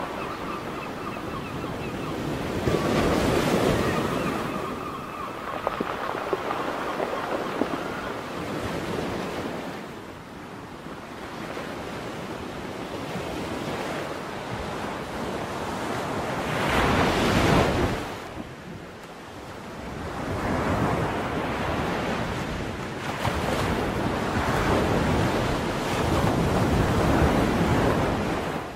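Ocean waves breaking and washing ashore in repeated swells, the loudest a little past the middle. Seagulls call over the surf during the first several seconds.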